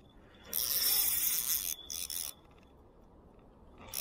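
Spinning reel's drag buzzing as a hooked fish pulls line off against it, a sign the fish is running. It comes in a burst of just over a second, then a short half-second one, and starts again near the end.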